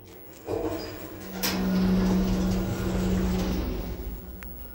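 Otis lift's automatic sliding doors closing: a motor starts with a jolt, gives a sharp click, then runs with a steady hum for about two seconds before fading, with a short click near the end.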